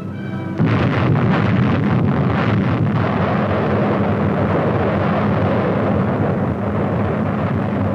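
Atomic bomb explosion on an old film soundtrack: a sudden blast about half a second in, then a long rumble that slowly dies away, after a few brief orchestral notes.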